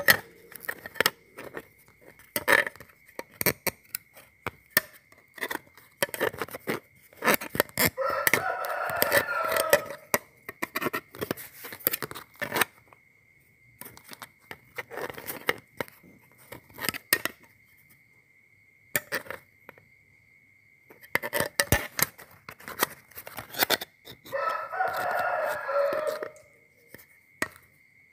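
Perforated metal construction-kit plates and screws clicking and clinking as they are handled and fitted together. A rooster crows twice in the background, about eight seconds in and again about twenty-four seconds in, over a faint steady high whine.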